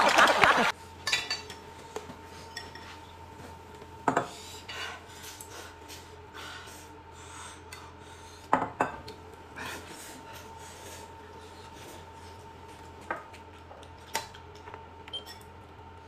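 Dishes and cutlery clinking and knocking now and then: a handful of short, separate clicks a few seconds apart over a faint steady hum.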